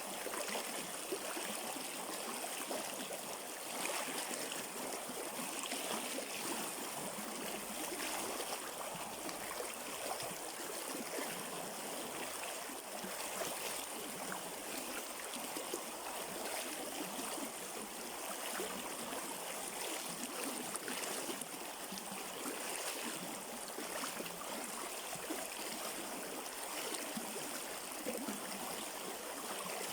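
A river stream running over rocks, a steady rushing and gurgling of water without a break.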